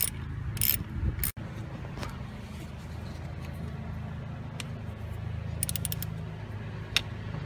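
Small ratchet and socket working the distributor cap screws: light metallic clicks and scrapes, with a quick run of ratchet clicks about six seconds in. A steady low hum lies under it.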